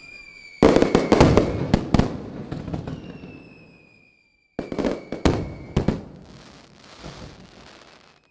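Fireworks going off in two volleys of sharp cracks and crackling, each trailing off, with a brief lull between them. A thin whistle slowly falls in pitch through it.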